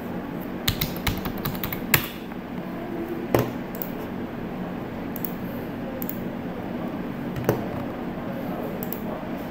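Computer keyboard keys tapped in a quick run of about a dozen strokes, typing a password, followed by single computer mouse clicks a couple of times later on, over a steady low room hum.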